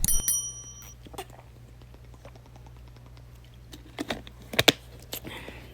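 A few scattered sharp clicks and knocks, with a short high ringing tone in the first second.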